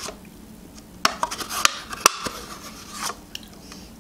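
Metal teaspoon scraping yogurt out of a small plastic yogurt cup, with a few sharp clicks of the spoon against the cup about one and two seconds in.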